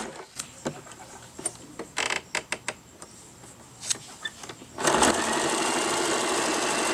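Electric household sewing machine sewing a zigzag interlock (overcast edge) stitch, run by its foot pedal. It stops at the start, a few light clicks follow, and then it runs steadily from about five seconds in.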